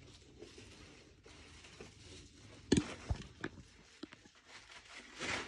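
Faint handling sounds: cloth rustling and a few light knocks, the sharpest a little under three seconds in, as a pair of pants is worked onto the foam-padded leg poles of a Halloween strawman figure's stand.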